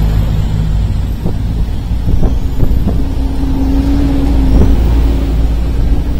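Road traffic: motorbike and car engines running close by, over a low rumble. A steady engine hum comes in about two seconds in and fades near the end.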